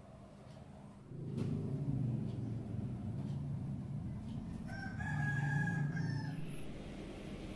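A long, held animal call with a clear pitched note, about five to six and a half seconds in, over a low, noisy sound that starts about a second in.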